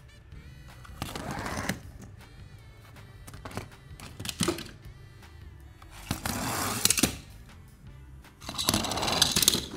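Toy packaging being handled and opened: three short bursts of rustling and crinkling with scattered small clicks and taps between them, over background music.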